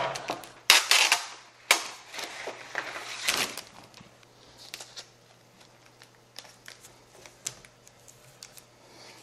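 Clear tape being pulled and torn off its roll in a few quick rips during the first few seconds, with stiff poster board rustling as it is handled. After that only faint taps and rustles as the board is pressed down.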